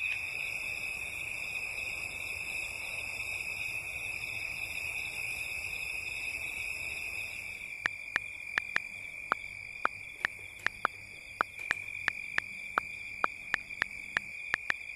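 A steady, high-pitched cricket trill throughout, with a hiss beneath it in the first half. From about eight seconds in come about twenty sharp, irregular clicks, two or three a second: keys being tapped on a computer keyboard.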